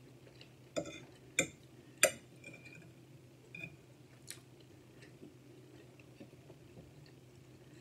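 Metal fork clinking against a plate, three sharp clinks in the first two seconds and a lighter one about four seconds in, with faint chewing between.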